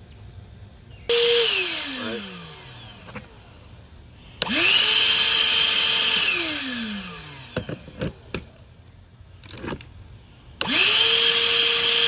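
Ridgid 18V cordless 9-gallon wet/dry shop vac motor switched on and off three times. It runs briefly about a second in and winds down. It spins up again about four seconds in, holds a steady whine for a couple of seconds, then coasts down with a falling whine. It spins up a third time near the end. Between the runs come a few sharp plastic clicks as a battery is taken out and put into the other side's battery port.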